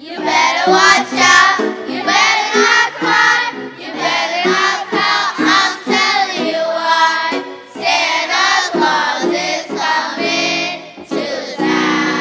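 Children's choir singing a holiday song together, with keyboard accompaniment, in phrases broken by short pauses.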